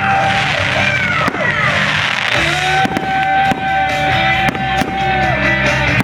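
Music with held, gliding notes over a steady low backing, mixed with the hiss and sharp crackles of fireworks.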